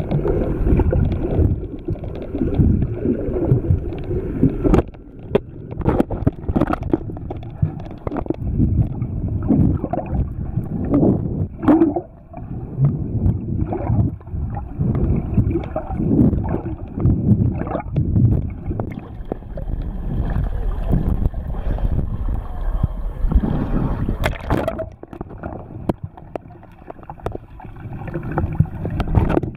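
Muffled underwater sloshing and rumbling of water moving around a GoPro camera held and then sinking below the surface, with several sharp clicks and knocks.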